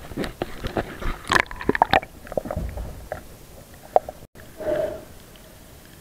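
Rapid clicks and knocks, dense in the first two seconds and then scattered, with a short muffled hum just before five seconds in: handling noise and water sounds of a camera moved from the surface to underwater in shallow sea.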